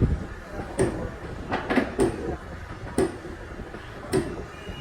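A series of sharp metal knocks and clanks, roughly one a second and uneven in strength, from hand work on heavy metal parts.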